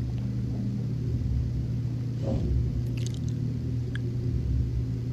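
Steady low hum, with a few faint clicks about three and four seconds in.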